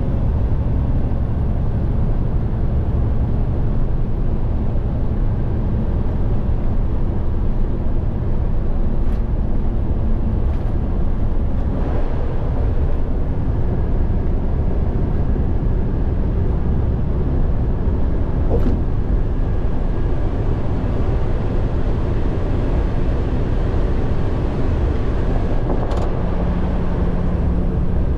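Steady low road and engine drone heard from inside a large vehicle's cab cruising at highway speed, with a few brief faint ticks. A steady hum joins near the end.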